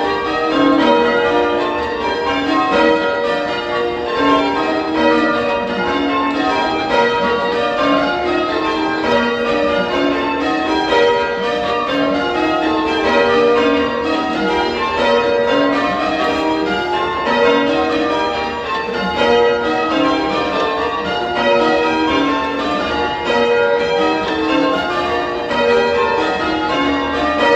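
Change ringing on a Whitechapel-cast ring of church bells, mostly cast 1999–2011 with one older bell: bright, punchy strikes following one another in a rapid, steady, repeating pattern. The ringing cuts off abruptly at the very end.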